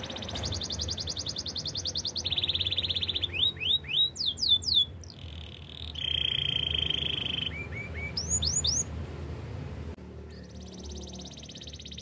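Domestic canary singing: a run of fast trills, each held for a second or so before jumping to a new pitch, broken by loud sweeping whistled notes about four seconds in and again near nine seconds.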